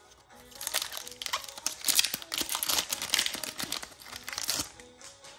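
A foil Pokémon booster pack wrapper being torn open and crinkled in the hands, a dense crackling rustle for about four seconds, over faint background music.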